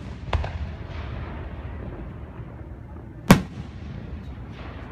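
Aerial fireworks shells bursting overhead: a sharp bang about a third of a second in and a louder one about three seconds later, with a low rumble between them.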